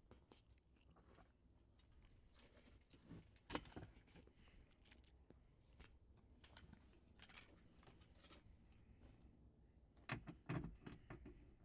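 Near silence, broken by a few faint clicks and light rattles, about three and a half seconds in and again near the end.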